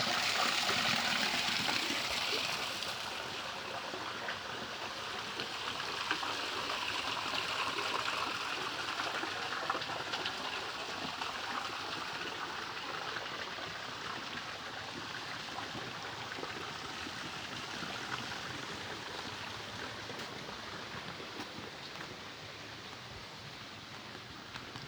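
Water rushing in a stream, a steady flow that is louder for the first three seconds or so and then gradually fades.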